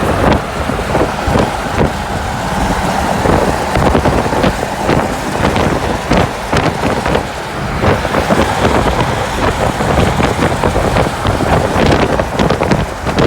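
Road traffic noise heard from a moving car, a steady low rumble with wind buffeting the microphone in frequent short gusts.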